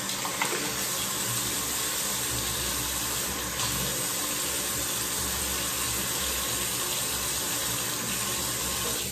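Tap water running steadily into a bathroom sink while a man wets his face and beard with it; the flow stops at the end.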